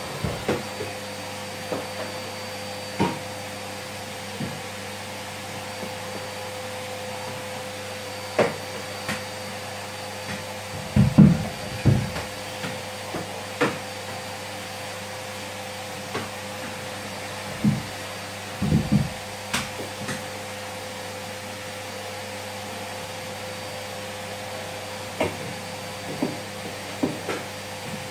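Canister vacuum cleaner running with a steady drone, broken by scattered knocks and thuds, the loudest about eleven and nineteen seconds in.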